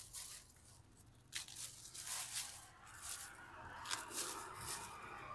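Hands tearing and crushing fresh cassava leaves amid a crinkling plastic bag, in irregular crackling and rustling bursts. The leaves are squeezed to force out their sap so they lose their bitterness.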